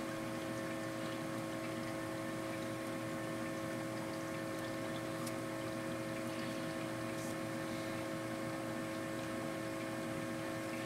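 Steady background hum and hiss, with several steady tones held throughout, and a couple of faint ticks.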